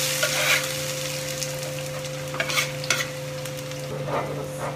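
Chopped garlic sizzling in hot oil in a cast-iron skillet, loudest at the start as it goes in, stirred with a wooden spoon that scrapes the pan a few times. A steady hum runs underneath.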